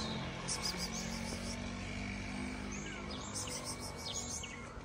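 Outdoor street ambience: a steady low hum with small birds chirping now and then.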